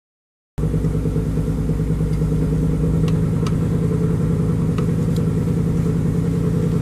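An engine idling steadily, cutting in abruptly about half a second in, with a few faint clicks over it.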